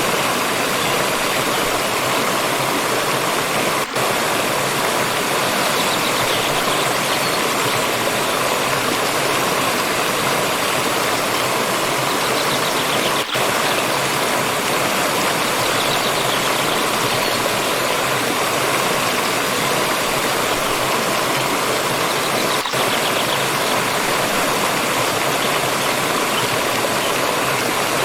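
Water stream flowing and splashing, a steady, even noise. It dips very briefly three times, about nine seconds apart.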